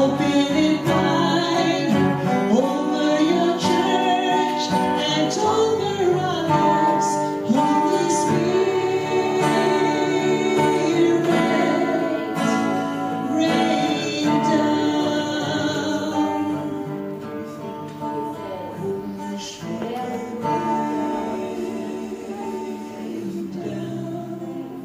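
A woman singing a worship song into a microphone, accompanied by acoustic guitar. The music grows softer over the last several seconds.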